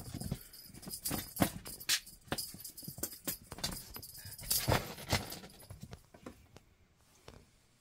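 An Oriental Shorthair kitten's paws tapping and thumping on the floor as it leaps and pounces at a feather wand toy, with quick irregular clicks and knocks that die away near the end.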